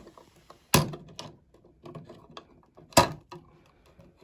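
Wire cutters snipping through the old outlet's electrical wires: two sharp snaps about two seconds apart, with small clicks of handling in between.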